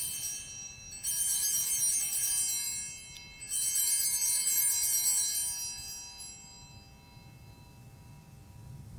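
Altar bells (a cluster of small Sanctus bells) shaken at the elevation of the chalice after the consecration, in bright jingling bursts about a second in and again about three and a half seconds in, the ringing fading away by about seven seconds.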